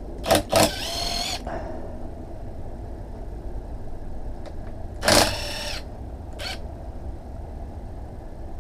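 Electric power tool run in short bursts to back out the oil pan bolts on a Honda B18C engine. There are two quick blips, then a run of about a second with a rising whine, then another half-second run about five seconds in and a brief blip after it.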